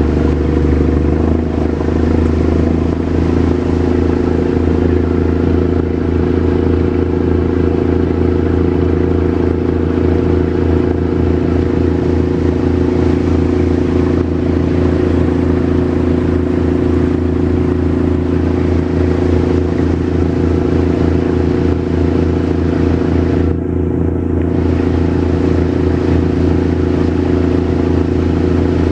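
Speedboat engine running steadily under way: a loud, even drone with a rushing noise above it.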